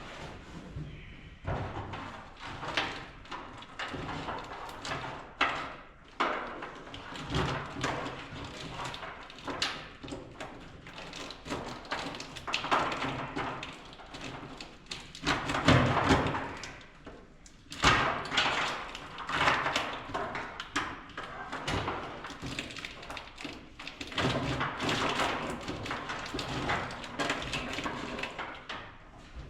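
Irregular clicks, knocks and rustling of hands and tools handling parts during mechanical work, with a few sharper thuds.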